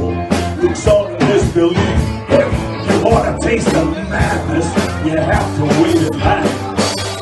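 Live blues band playing: electric guitar, bass guitar and drums with a steady beat, and a man singing into a microphone.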